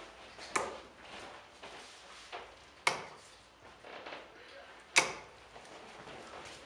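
Three steel-tip darts striking a Bull's Focus II bristle dartboard, one sharp thud each, about two seconds apart. The last hit is the loudest.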